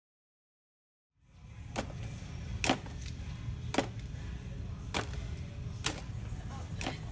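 About a second of silence, then a steady low hum with sharp, even ticks about once a second.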